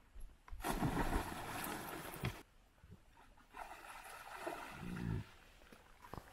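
Horse heaving itself up out of shallow river water with a rider on its back: a long burst of splashing and churning water, then a second surge of sloshing that ends in a low, falling groan.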